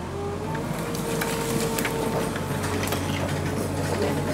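Tracked skid-steer loader's engine working under load with a steady whine, dragging a ride-on mower up out of a ditch by rope. Sticks and brush snap and crackle as the mower is pulled through them.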